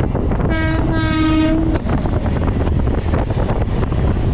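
Electric train horn sounding twice, a short blast then a longer one, about half a second in. Under it runs the steady noise and wheel clatter of a moving train, as an express passes on the adjacent track.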